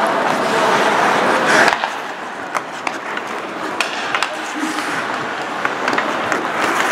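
Ice hockey play on a rink: skates scraping the ice and sharp clacks of sticks and puck, over crowd chatter that drops off about two seconds in.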